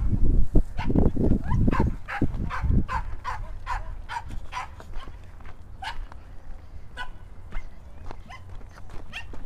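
A dog barking in short, quick yaps, about three a second for the first three seconds, then more sparsely, over a steady low rumble of wind on the microphone.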